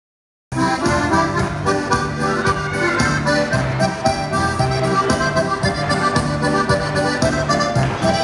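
Styrian button accordion (Steirische Harmonika) playing a tune over steady bass notes and an even beat; the music cuts in abruptly about half a second in.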